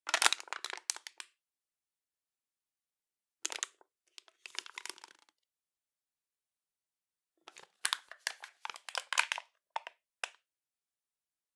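Empty metal can being squeezed by hand: three bouts of crackling and crinkling as the thin wall buckles, each a second or two long with silent gaps between.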